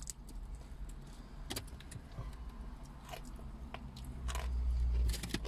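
Eating fried chicken: scattered crunches, chews and small clicks over a steady low rumble that swells louder for about a second near the end.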